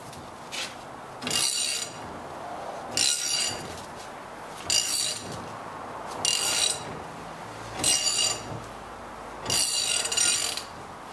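Ratchet turning the screw of a C-clamp ball joint press in short strokes, a burst of metallic clicking about every one and a half seconds, as a new upper ball joint is pressed into a Ford F250 steering knuckle. It is going in smoothly.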